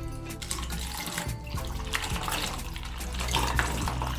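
Water pouring steadily from a plastic bottle into a plastic funnel cut from a bottle top, splashing and trickling through into the bottle below, with background music.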